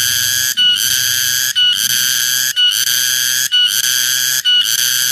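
Cicada calling: a loud, high-pitched buzzing drone that drops out briefly about once a second.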